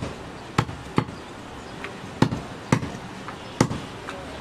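Heavy butcher's cleaver chopping goat meat on a wooden log chopping block: about six sharp chops at an uneven pace, with a few lighter taps between them.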